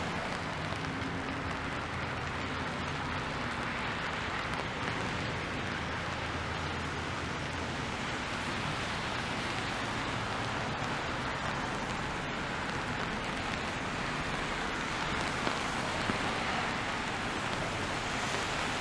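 Steady rain falling on an umbrella and the wet street, with traffic running on the wet road; a low engine hum is stronger in the first half.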